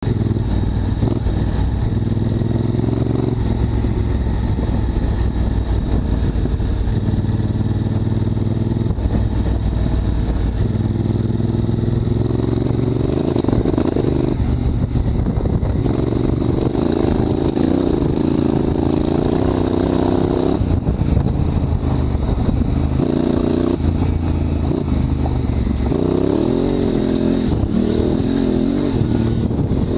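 Honda Africa Twin CRF1000L's parallel-twin engine running on the move, its pitch rising and falling in steps as the rider works the throttle and shifts gears.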